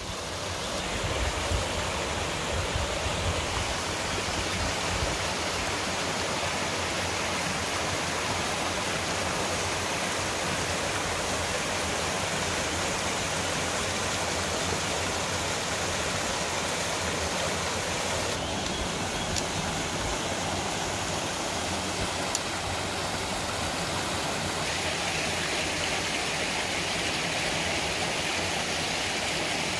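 A small mountain stream cascading over rocks, with a steady rushing, splashing sound that fades in during the first second.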